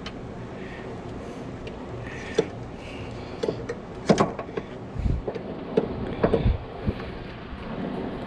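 Scattered light clanks and knocks of a metal engine mount bracket being handled and worked into place against the engine and frame, the sharpest about four seconds in, followed by a few dull thumps.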